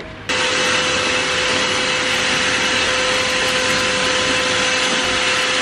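Vacuum cleaner running steadily: a loud, even rush with a constant hum, switching in abruptly just after the start. It is drawing up dust from sanding the crankshaft's seal surface with emery cloth.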